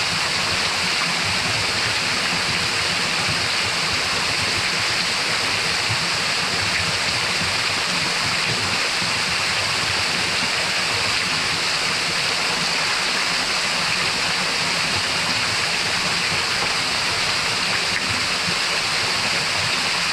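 A waterfall's water falling and splashing, a steady, even rush.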